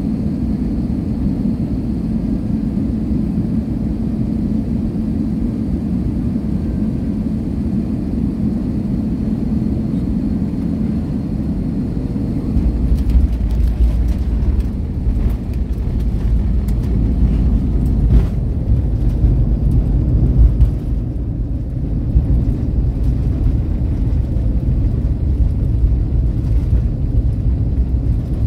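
Airbus airliner cabin noise heard from a passenger seat: a steady drone on final approach. About halfway through, the landing gear touches down. A heavier low rumble from the wheels on the runway then sets in, with clicks and rattles through the rollout.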